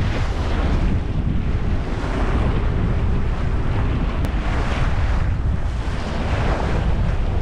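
Strong wind buffeting the microphone with a heavy, continuous rumble, over water rushing and splashing along the hull of a sailboat under way in choppy water; the rushes swell every second or two.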